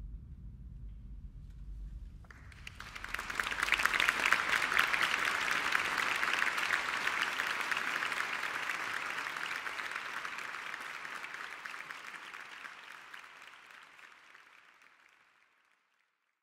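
Audience applauding, breaking out suddenly about two seconds in after a low room rumble, then slowly fading out near the end.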